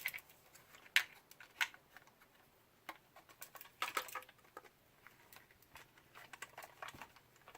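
Scattered light clicks and taps of small tools and tiny screws being handled on a work surface, the sharpest about one second in and a cluster around four seconds in.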